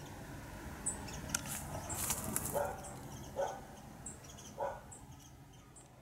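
A cat gives three short calls a second or so apart, amid brief rustling of leaves and twigs.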